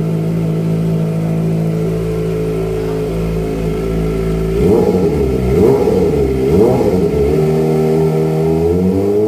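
Kawasaki ZX-25R's 250 cc inline-four running through a Pro Speed aftermarket exhaust: holding steady, then blipped up and down several times in quick succession about five seconds in, settling, and rising again near the end.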